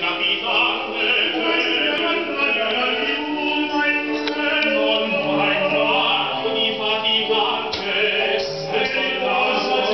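Opera music: a classical voice singing long held notes over accompaniment, with a lower sustained note entering about halfway through.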